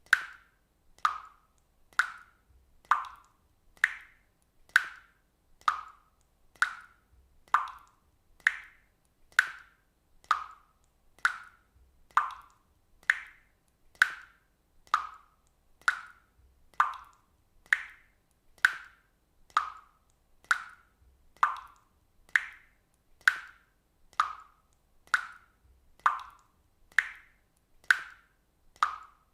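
Water droplets falling into water, one short plop at a time, evenly spaced at about one drop a second.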